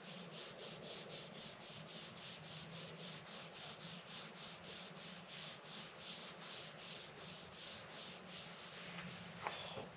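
Faint cloth rubbing beeswax oil along a hand-turned wooden wand, in quick, even back-and-forth strokes about three a second.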